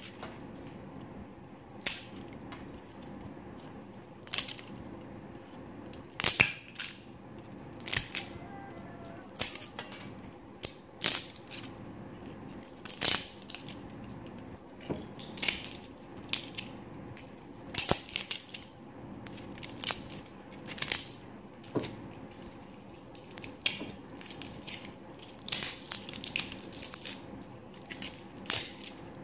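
Needle-nose pliers snapping and crunching brittle plastic support material off a 3D-printed model: irregular sharp cracks every second or two.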